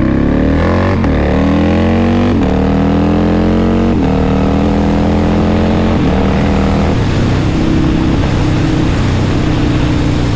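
Harley-Davidson V-twin motorcycle engine accelerating through the gears, heard from the rider's seat. The note rises in pitch with quick upshifts about one, two and a half and four seconds in, then holds steady at cruising speed for the rest.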